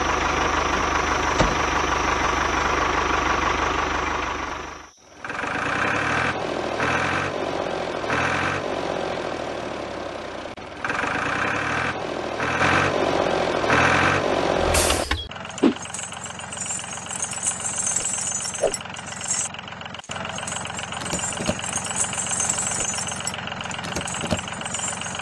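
Tractor engine running steadily, in three sections that change abruptly about five seconds in and again about fifteen seconds in.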